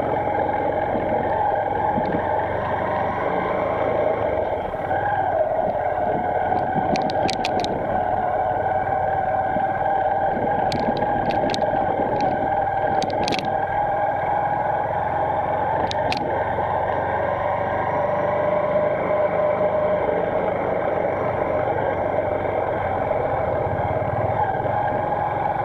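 Motorcycle engine running steadily while riding at cruising speed, with road noise; a few short, sharp clicks come through in the middle.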